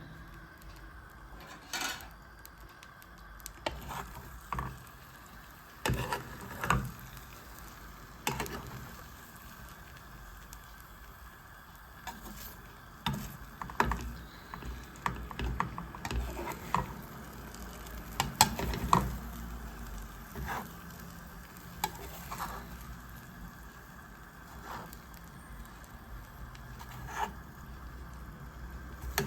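Beaten eggs with Gouda cheese and vegetables sizzling in olive oil in a frying pan, with a utensil scraping and knocking against the pan now and then as the eggs are stirred and scrambled.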